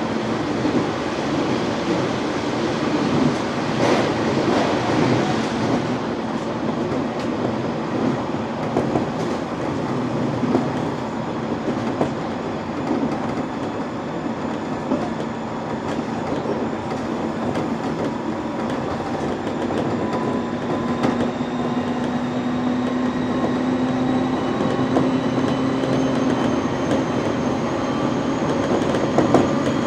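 JR East 701 series electric train running along the line: steady rumble of wheels on rail with clicking over the rail joints. In the second half a faint whine joins in and slowly rises in pitch.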